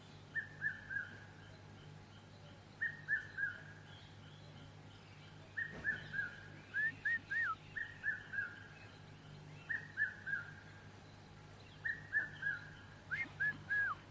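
A bird calling over and over: short phrases of three or four quick, clear, falling notes, repeated every two to three seconds. A couple of the phrases run longer, ending in a lower downward slur.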